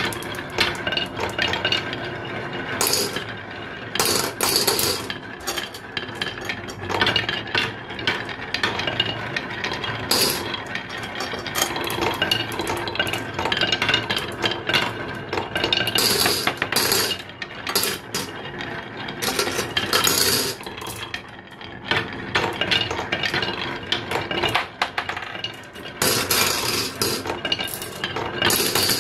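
Glass marbles rolling down a wooden zigzag marble slope: a continuous rolling rattle with many sharp clicks and knocks as they hit the wooden bends of the track.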